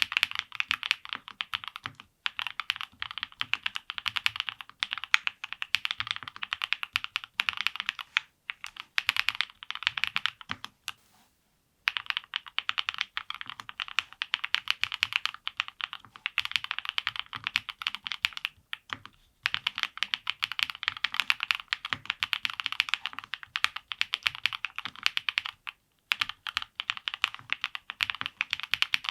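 Dry Studio Black Diamond75 custom mechanical keyboard, with an FR4 plate, full foam and lubed Tecsee X SW Flow Black switches, being typed on in fast continuous runs. The typing pauses briefly a few times, longest for about a second near the middle.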